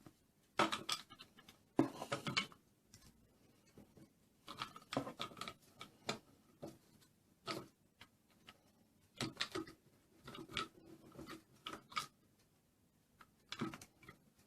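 Hands handling plastic toy parts: irregular clicks, taps and short scrapes in small clusters.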